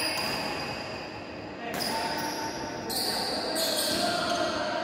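Badminton rally: sneakers squeaking in short high-pitched bursts on the court mat as the players move and turn, with racket hits on the shuttlecock.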